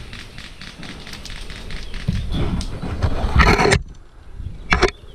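Rustling and brushing of leaves, twigs and gear as a player pushes through undergrowth, with scattered twig clicks. It grows to a loud, dense rustle about three and a half seconds in that cuts off suddenly, then one short brush near the end.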